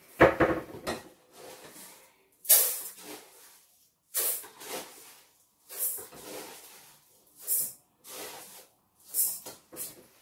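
Dry rice being scooped and poured into a rice cooker pot: a string of about eight short hissing pours of grain, each under a second, with brief pauses between.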